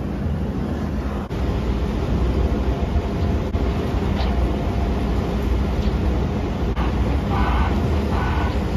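Large engine idling steadily nearby, a constant low rumble.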